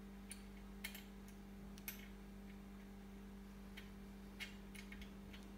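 A few faint, irregular light clicks of metal parts being handled: the axle nut and anti-rotation washers on the e-bike's front hub-motor axle, over a faint steady hum.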